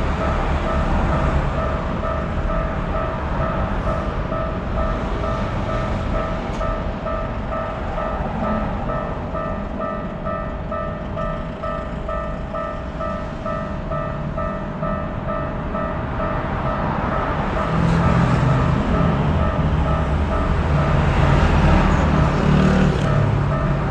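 Japanese railroad crossing warning bell ringing over and over, about two strikes a second. Under it a low rumble grows louder in the last six seconds or so.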